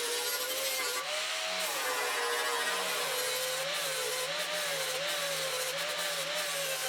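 Angle grinder grinding down welds on a steel quarter valance. The motor's whine rises and dips in pitch as the disc is pressed into the metal, over a steady rasping of the disc on steel.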